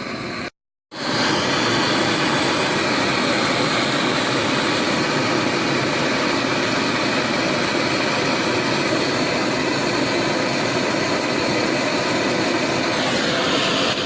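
Steady, loud roar of a heating tool getting a stuck, broken part really hot so that it can be unwound. It starts about a second in, and a tone in it falls in pitch near the end.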